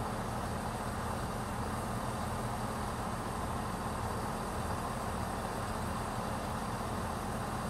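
Class 170 Turbostar diesel multiple unit idling while standing, a steady low engine hum that holds the same pitch throughout.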